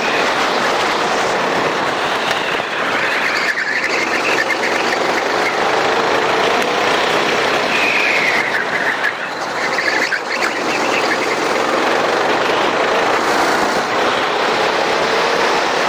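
Racing kart engine running at speed, its pitch rising and falling through the corners, with tyres squealing briefly about three seconds in and again for a couple of seconds past the middle.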